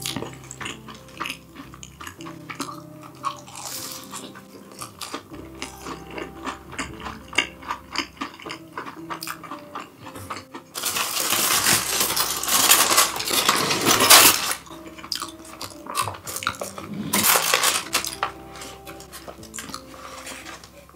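Cutlery clinking and scraping against dishes and containers during a meal, with many small sharp clicks. A little past halfway comes a loud, noisy stretch of about three and a half seconds, and a shorter one near the end.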